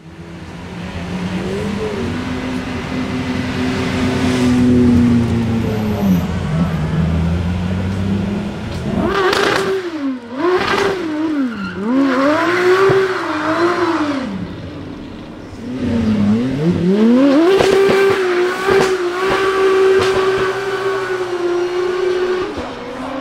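Aston Martin Vulcan AMR Pro's naturally aspirated 7.0-litre V12 running at low revs, then revved up and down in about five quick swoops, then held at steady high revs near the end with tyre squeal as the car does a smoky burnout.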